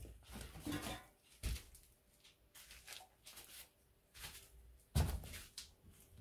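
Scattered handling noises close to the microphone: rustles and knocks as someone moves about, with a dull low thump about five seconds in the loudest of them.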